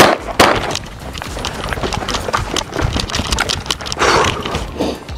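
Kriss Vector firing: two sharp shots about half a second apart at the start, followed by a string of fainter, irregular clicks and knocks.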